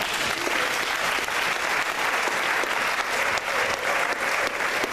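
Audience applauding: dense, steady clapping from a congregation at the close of a presentation.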